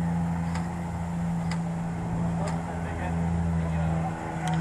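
A steady low engine drone, one unchanging pitch. A few faint, sharp clicks sound over it, roughly a second apart.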